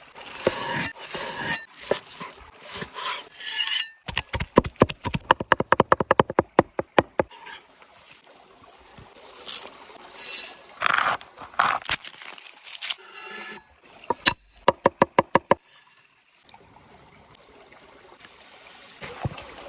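A knife chopping fast on a wooden board, in two runs of quick, even strokes, with rubbing and scraping between them.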